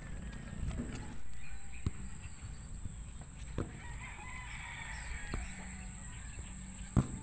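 A rooster crowing once, about four seconds in, over the sharp knocks of a phone being handled; the loudest knock comes near the end.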